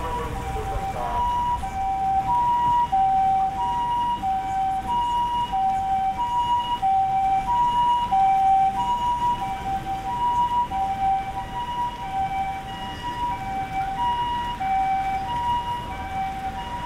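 Japanese ambulance siren sounding its two-tone hi-lo pattern, steadily alternating between a high and a low note, about one high-low pair every 1.3 seconds. It is loudest around the middle and a little fainter near the end, over a steady background hiss.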